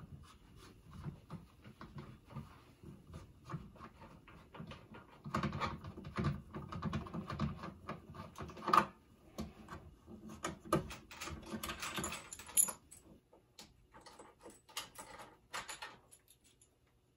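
Coax cable connectors being unscrewed and pulled off the rear panel of a ham radio amplifier: a long run of small metallic clicks, rattles and cable handling, busiest in the middle, with two sharper clinks.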